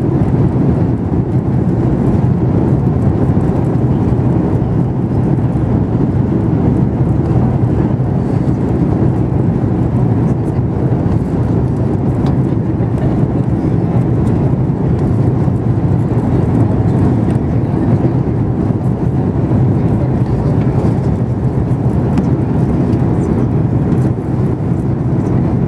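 Steady low cabin noise of a Lufthansa Airbus airliner on approach with its flaps extended, engine and airflow noise heard from inside the passenger cabin.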